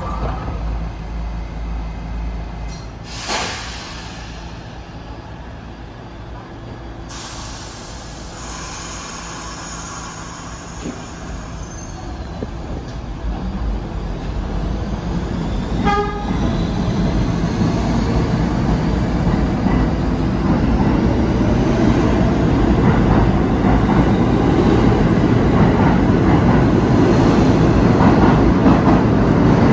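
R68 subway train leaving the station. The doors close with a knock about 3 seconds in, air hisses for a few seconds, and a short horn toot sounds about halfway through. The train then accelerates out, its rumble growing louder as the cars pass close by.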